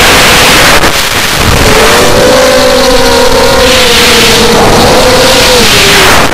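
Mini quadcopter's brushless motors and propellers whining loudly, the pitch rising and falling with throttle as it manoeuvres, over a heavy rushing noise of air and prop wash; a brief dip in level about a second in.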